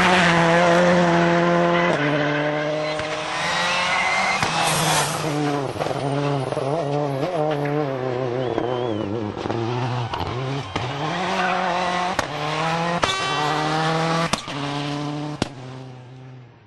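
Rally car engine running hard at high revs, with its pitch stepping up and down through gear changes, wavering as the car brakes and turns mid-way, then pulling again. A few sharp cracks come in the second half, with tyre squeal.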